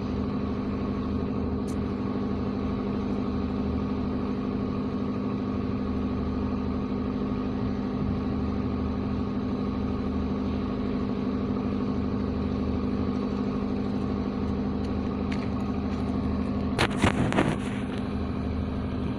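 An engine running steadily at an even idle, a constant drone with a low hum beneath it. Near the end, a short cluster of sharp knocks or clatters stands out above it.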